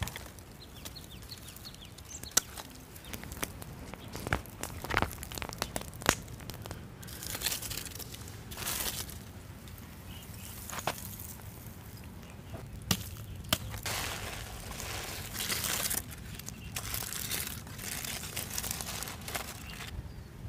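Scraping, crunching and rustling of soil and charcoal being handled in an earth cooking pit, with scattered sharp clicks and cracks and several longer crackling, crinkling stretches.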